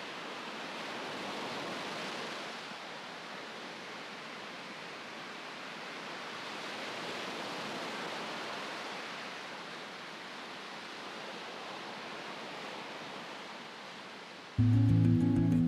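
Ocean surf: an even wash of noise that swells and eases over several seconds. Music cuts in suddenly near the end.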